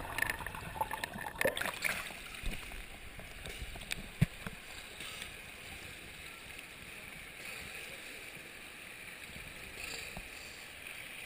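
Pool water splashing for the first couple of seconds, then steady lapping and a hollow indoor pool-hall noise, with one sharp knock about four seconds in.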